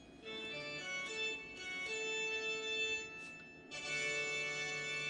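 Background music of held organ-like keyboard chords that change every second or two, dipping briefly a little past halfway before a new chord comes in.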